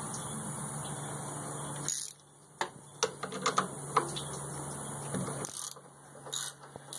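Socket ratchet clicking in short runs of sharp ticks between about two and five and a half seconds in, as it turns a bolt. Before that there is a steady hiss.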